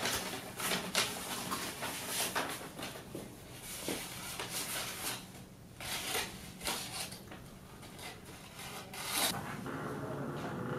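Sheets of paper being unfolded and shuffled by hand, with irregular crisp rustles.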